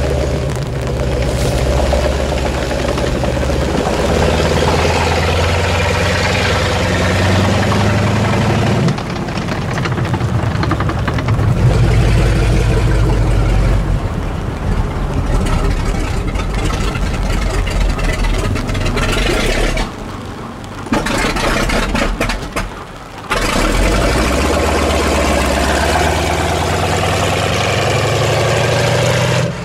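Continental R-975 C4 nine-cylinder radial engine of an M4 Sherman tank running at low revs with an irregular beat. Its pitch shifts a few times along the way.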